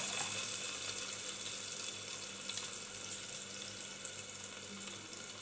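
Hot refined oil sizzling steadily around whole spices (dry red chillies, cinnamon sticks, a bay leaf) in an open pressure cooker, slowly growing quieter. A low steady hum sits underneath.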